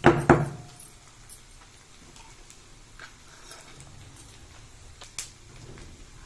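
A couple of sharp knocks of a stone pestle in a stone mortar as garlic and ginger are pounded, then only faint scattered taps and scrapes while the crushed paste is scraped out of the mortar by hand.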